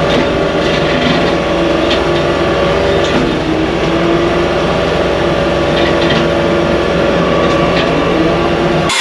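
Skid steer running hard with a Blue Diamond cutter head shredding brush and overgrowth: a loud, steady engine and cutter drone with a few short knocks. It changes abruptly at the very end.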